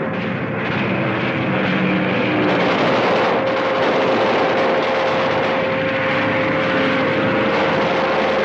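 Propeller airplane engine droning steadily overhead, with a single steady tone held through it.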